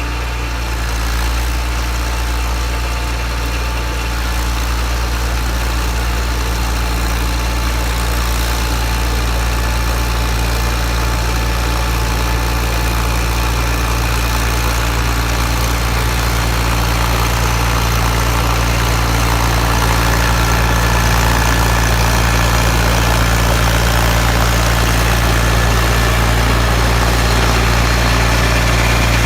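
John Deere 318 garden tractor's two-cylinder engine running steadily, with a faint rise in loudness over the second half.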